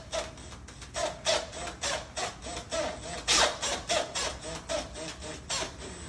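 Cordless drill running and working at a mortise lock's faceplate in a door, its bit biting in uneven grinding surges of about two a second over a steady motor whine. It stops shortly before the end.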